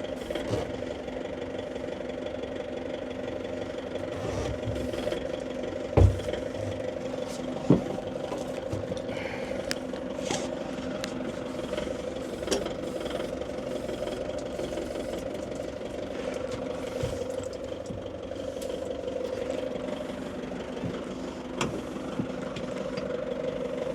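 An engine idling steadily, with two sharp clunks about six and eight seconds in.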